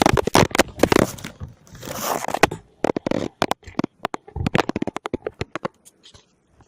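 Snack packaging being handled close to the microphone: quick clusters of sharp crackles and rustles, thinning out near the end.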